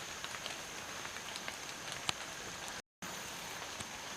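Light rain pattering on foliage: a steady hiss with scattered small ticks of drops, under a thin steady high-pitched whine. The sound cuts out completely for a moment a little before the three-second mark.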